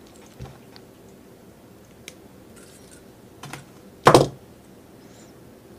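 Light clicks and taps of fingers handling fine gold-filled jewelry wire threaded through a pearl, with one louder sharp click about four seconds in.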